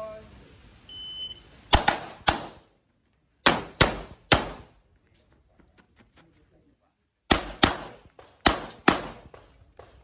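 A shot-timer start beep, then a pistol-caliber carbine firing about ten shots in four quick strings of two or three, with a pause of about three seconds between the second and third strings.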